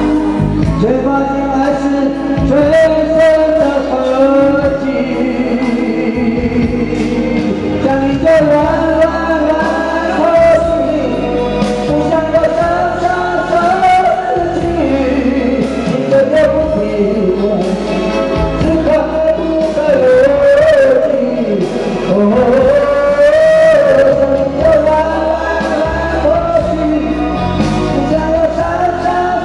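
A man singing into a microphone over a karaoke backing track with a steady beat.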